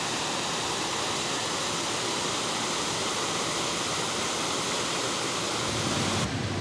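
Steady rush of falling water from a waterfall. About six seconds in it cuts off suddenly to a duller, lower background.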